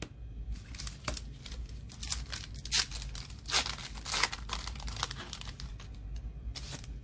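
Foil trading-card pack of Panini Revolution basketball cards being torn open and crumpled by hand: a run of irregular crinkles and rips.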